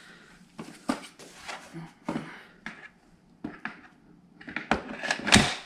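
Plastic clicks and knocks as an infant car seat is handled on a Peg Perego YPSI stroller frame, with a loud clunk a little after five seconds in.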